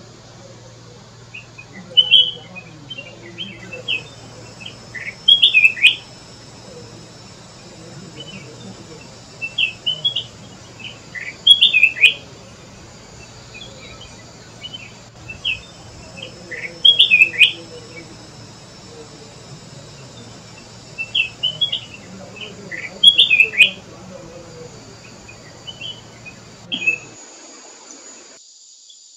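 Flame-throated bulbul calling: short phrases of a few quick, sharp notes, repeated every few seconds and ending a little before the close.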